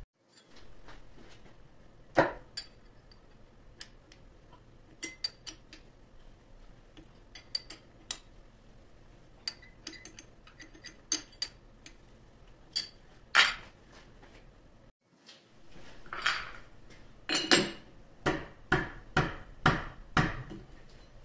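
Scattered light metallic clicks and clinks as steel parts are handled at a three-jaw lathe chuck holding a square bar. Over the last few seconds comes a denser run of louder metal clanks as the chuck key turns in the chuck, tightening the jaws.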